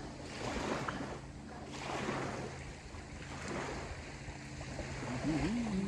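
Wind and small waves lapping on the shore: a washing noise that swells and ebbs every second or so, over a faint steady low hum.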